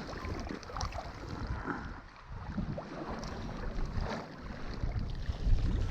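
Wind rumbling on the microphone over low boat and water noise, with a few light knocks.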